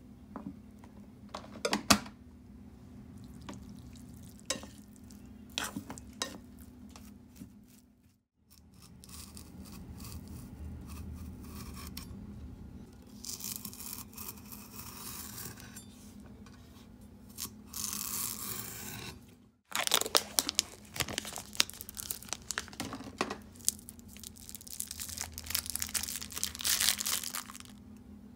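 Kitchen food-prep sounds in three short takes. First a rice paddle pats and scrapes cooked rice on a ceramic plate. Then a kitchen knife slices cucumber on a wooden cutting board. Near the end comes crinkly rustling as cling film is peeled off food.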